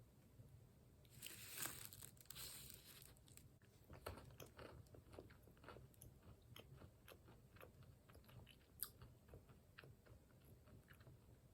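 Faint crunching and chewing of hazelnut-flavoured almonds being eaten: a soft hiss in the first few seconds, then a steady run of small, sharp crunches from about four seconds in.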